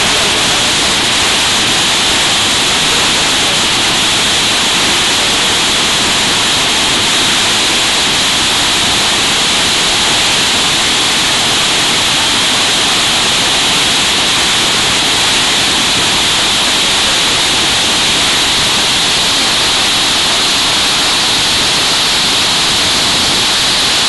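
Tortum Waterfall's falling water, heard close up: a loud, unbroken rushing hiss that holds steady throughout.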